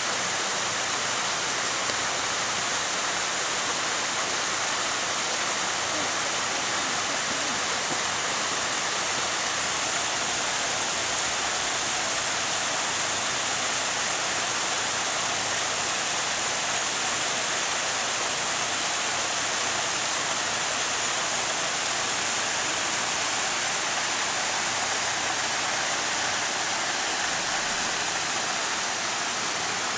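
Rushing water of a waterfall cascading over rock: a steady, unbroken hiss.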